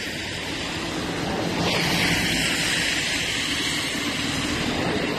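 Flooded river rushing: a steady, dense rush of water whose hiss grows stronger about a second and a half in.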